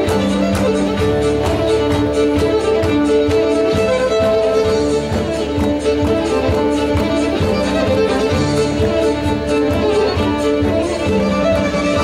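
Fiddle playing a lively Celtic tune with a band, a drum keeping a steady beat underneath.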